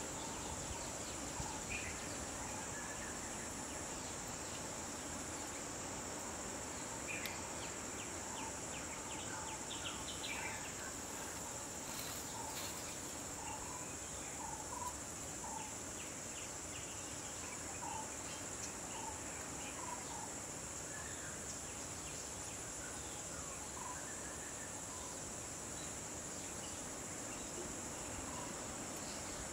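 Steady high-pitched drone of insects in the trees and grass, with short bird chirps scattered throughout.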